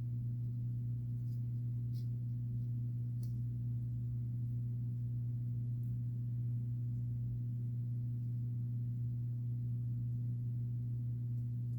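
Steady low electrical hum, unchanging throughout, with a few faint light ticks in the first few seconds.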